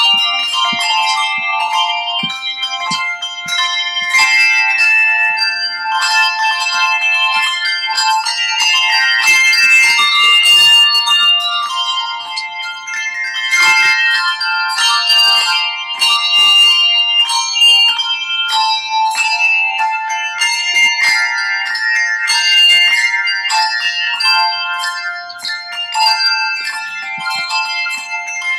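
A handbell choir playing a tune. Many high bell tones are struck in turn and ring on over one another.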